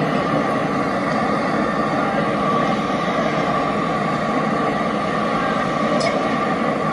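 Steady rumble of passing city vehicles, loud and without a break.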